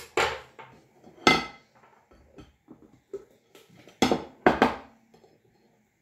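A plate and a knife knocked and set down on a stone countertop: a series of sharp clatters, the loudest a little over a second in and a close pair about four seconds in, as a flan mould is covered with the plate and turned out.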